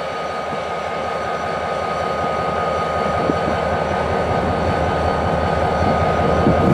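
Diesel freight locomotive engine running, a deep pulsing rumble with a steady high whine above it, growing gradually louder as the locomotive draws closer.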